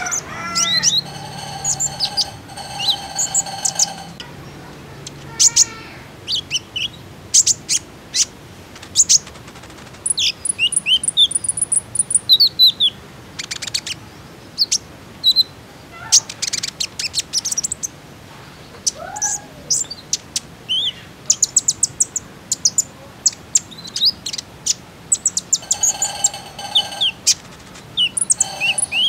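Male Van Hasselt's sunbird (kolibri ninja, green-crowned type) singing: rapid, high, thin chirps, ticks and short trills in spells with brief gaps, with a lower, buzzier phrase near the start and again near the end.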